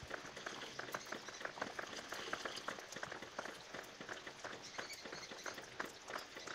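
Water pattering and dripping in many small irregular drops on a shallow, sack-lined pond floor.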